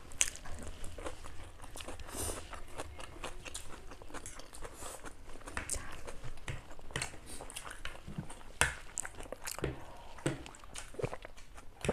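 Two people eating chow mein noodles with forks: slurping and chewing, with many irregular sharp clicks, likely forks against the plates.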